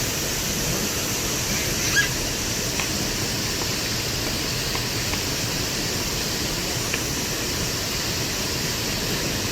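Valley stream water rushing steadily over rocks, with a brief faint high sound about two seconds in.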